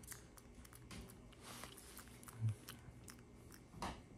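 A monkey grooming a person's skin at close range: soft, scattered clicks from its fingers and mouth picking through hair and skin. A dull low thump about two and a half seconds in and a brief rustle near the end.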